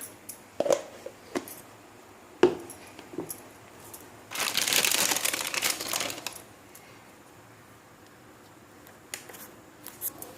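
Kitchen handling sounds while preparing atta dough in a mixer grinder: several sharp clinks and knocks, then a noisy rustling burst of about two seconds, and two more clicks near the end.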